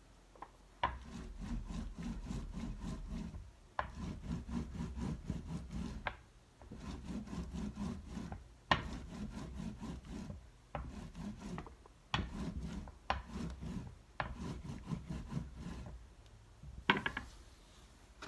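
Rolling pin rolled back and forth over a plastic lace placemat on a soft clay slab, pressing the lace pattern into the clay: about seven strokes of a low rumbling roll with a fine rapid patter, several starting with a sharp click. A few sharp clicks come near the end.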